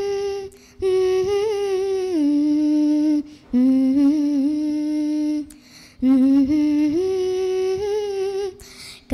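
A girl humming a slow melody into a microphone, unaccompanied, in long held notes with short breaks between phrases.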